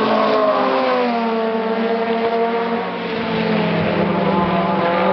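Race car engines at speed on a circuit, passing and pulling away. Their notes drop in pitch during the first second or so, then settle into a steady drone that carries on to the end.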